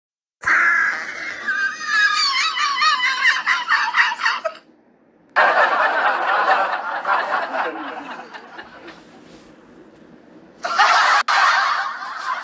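Laughter sound effects: high-pitched, wavering laughter in three separate bursts that start and stop abruptly. The first runs about four seconds and ends suddenly, the second fades away gradually, and the third cuts in loudly near the end.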